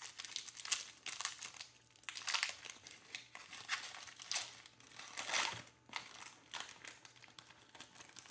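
Foil wrapper of a Panini Mosaic hobby card pack being torn open and crinkled in the hands, a run of irregular crackles and rustles, loudest about two seconds and five seconds in.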